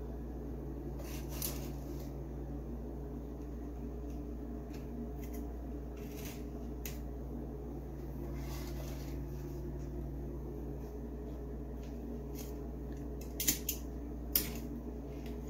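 Breaded pork cutlets being laid one after another into a wire-mesh air fryer basket: scattered soft taps and light metal clicks against the basket over a steady low hum, with a few sharper clicks near the end.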